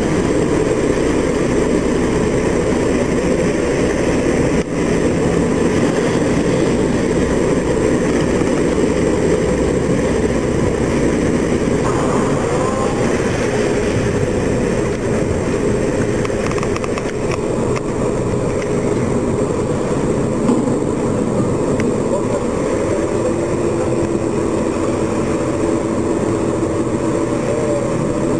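Landing catamaran's engines running with a steady low rumble as the craft backs off the beach through shallow water; a faint steady hum joins in about halfway through.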